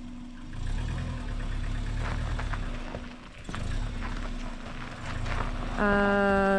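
Subaru car engine running as the car manoeuvres slowly on a rough track, with a low rumble and a steady hum. A loud, steady pitched tone starts near the end.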